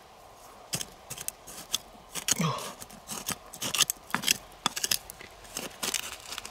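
A small metal blade scraping and prying in dry, stony soil: irregular gritty scrapes and sharp clicks as it digs around a buried lump.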